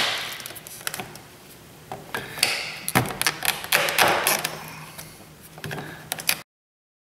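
Metal screwdriver and pick tips scraping and clicking against a plastic door-panel reflector as it is pried at its lock tabs: a run of short clicks and scrapes that stops abruptly near the end.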